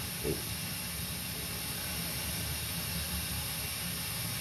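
Water running down a cast-iron drain line: a steady rushing hiss with a low rumble underneath.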